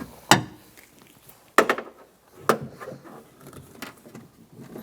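A wrench knocking and clanking against the metal inside a car door while loosening a nut: four sharp, separate knocks a second or so apart.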